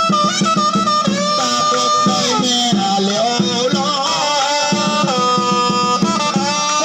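Vietnamese funeral band music: a reedy wind instrument plays a held, sliding melody over steady drum beats.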